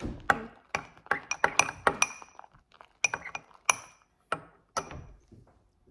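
A utensil clinking against a bowl while stirring slime, a quick irregular run of sharp taps that each ring briefly at the same pitch, thinning out over the last couple of seconds.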